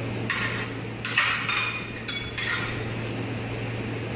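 Steel epee blades clashing and scraping against each other in a bout: a quick run of about six metallic contacts, some with a short ring, within the first two and a half seconds.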